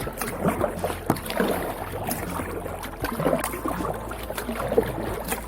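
Kayak paddle strokes dipping and splashing in the water, with small knocks and drips around a sit-on-top kayak, coming roughly once a second.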